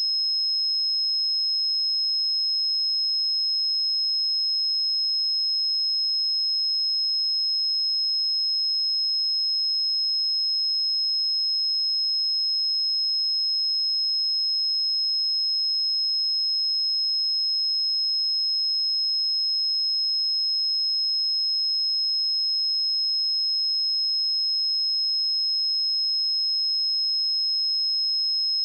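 Pure 5153 Hz sine-wave test tone, a single steady high-pitched whistle held at constant level.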